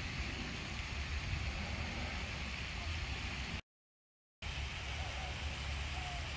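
Steady low outdoor rumble with no clear single source, cutting out completely for under a second about halfway through. A few faint short whistles come near the end.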